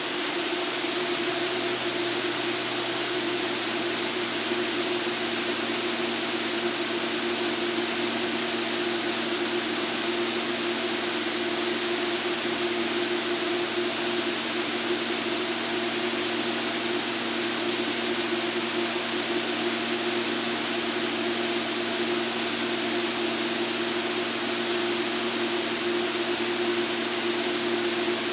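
Cockpit noise of an Extra 300L aerobatic plane in steady flight: its Lycoming six-cylinder engine and propeller drone at a constant pitch under a rush of air, with a few steady whining tones on top.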